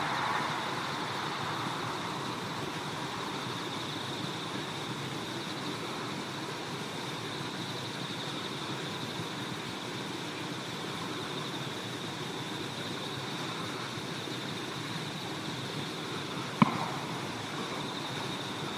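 Steady outdoor background noise with a thin, steady high-pitched tone running through it. A louder rush fades away in the first second or two, and a single sharp click comes near the end.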